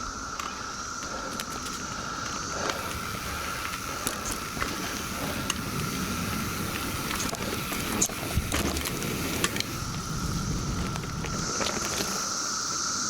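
Mountain bike riding along a dirt trail: a low tyre and wind rumble with scattered clicks and knocks as the bike rattles over bumps, under the steady drone of a 17-year periodical cicada chorus.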